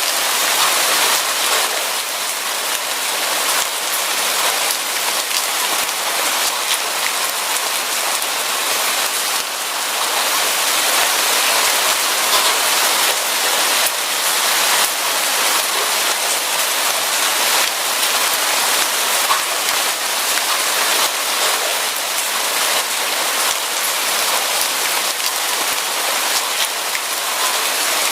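Steady rain falling on a surface, with a dense patter of individual drop hits.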